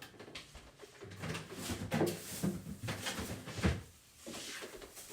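A few scattered knocks and bumps in a kitchen, as of a drawer or cupboard being opened and items moved while someone fetches an ingredient; the loudest knock comes about two-thirds of the way in.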